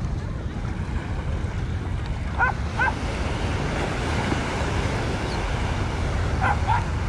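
Wind buffeting the microphone over steady ocean surf, with a dog barking twice about two and a half seconds in and a few more short barks near the end.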